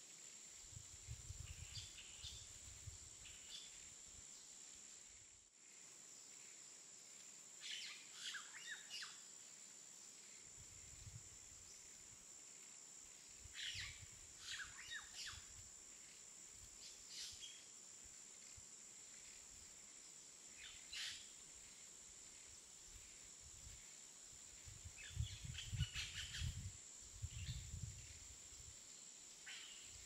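Outdoor ambience of birds chirping in short scattered bursts, over a steady faint high hiss and intermittent low rumbles.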